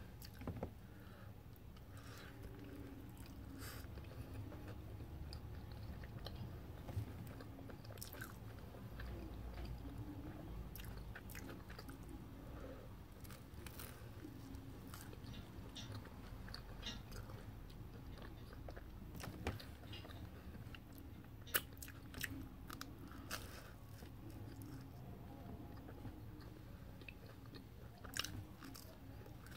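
A person biting and chewing toasted multigrain bread topped with avocado and egg, close to the microphone: soft mouth sounds with light crunches and scattered sharp clicks.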